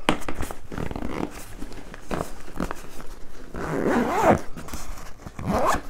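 Zipper on a gear-bag pocket being pulled, with a longer pull about four seconds in and a shorter one near the end, among rustling and small knocks from the gear being handled.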